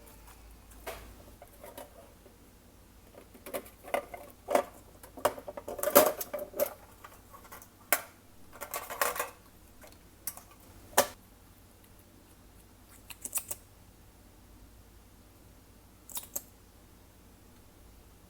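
Glossy slime being pressed and stretched by hand, giving irregular sticky clicks and short crackling squelches. They come in quick clusters through the first half, then only a few scattered clicks.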